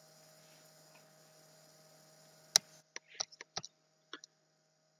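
Steady low mains hum under a faint noise floor. About two and a half seconds in there is one sharp click, then the hum cuts off and a string of short clicks follows.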